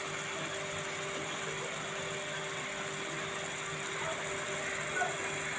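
Fish-head and cabbage curry simmering in a kadai on the stove: a steady soft bubbling hiss with a faint low hum, which cuts off abruptly near the end.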